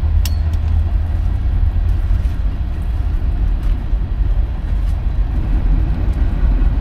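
Wind buffeting the microphone: a loud, steady low rumble, over a faint hiss of rain, with one sharp click just after the start.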